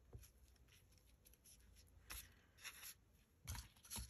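Faint rustling and light taps of paper cutouts being handled and slid across a paper-covered board, with a few brief louder touches about two seconds in and near the end.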